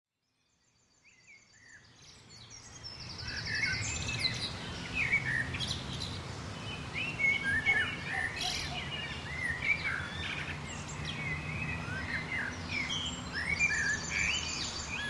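Several birds chirping and calling, with a few fast high trills, over a steady low background hum; the sound fades in over the first few seconds.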